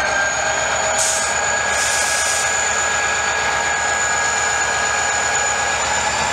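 GM GT22CW diesel-electric locomotive running under load with a loaded freight train: a steady high whine over a low pulsing rumble, with two brief hisses about one and two seconds in.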